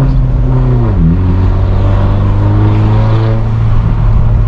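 BMW 118i with a straight-piped exhaust (back box and resonator deleted) driving, heard from inside the cabin with the windows down: a loud, steady exhaust drone whose pitch drops about a second in, then holds steady at lower revs.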